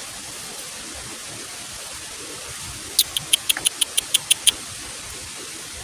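A quick run of about a dozen short, high chirps from a small animal, lasting about a second and a half, over a steady hiss.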